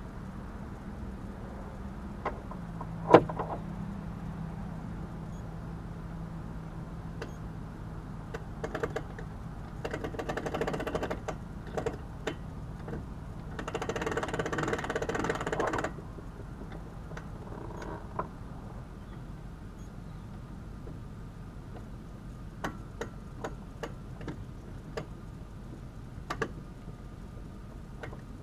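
Boat trailer winch being wound in two bursts of a couple of seconds each, with a sharp clack about three seconds in and scattered ticks near the end. The steady hum of an idling engine runs underneath.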